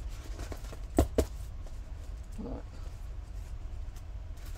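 Two sharp knocks close together about a second in, from craft materials being handled and set down on a work table, then a short hummed murmur, over a steady low hum.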